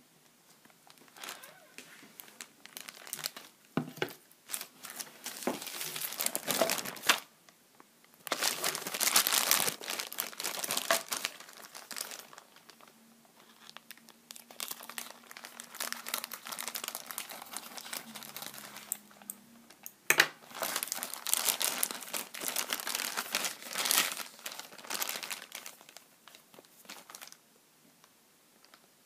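Clear plastic packaging bags crinkling and rustling as they are handled and pulled open, in uneven bursts, loudest about a third of the way in and again from about two-thirds through, dying away near the end.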